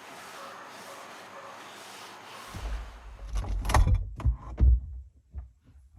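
A steady hiss, then from about two and a half seconds in a run of heavy thumps and sharp knocks, like a door and objects being handled.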